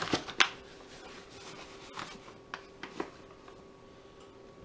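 Measuring cup scooping self-rising flour from a paper bag: rustling of the bag with a few short knocks and scrapes of the cup, the loudest about half a second in. A faint steady hum runs underneath.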